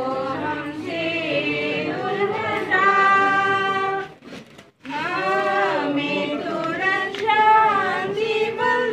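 A group of voices singing together unaccompanied, in long held notes. The singing drops out briefly about four seconds in, then resumes.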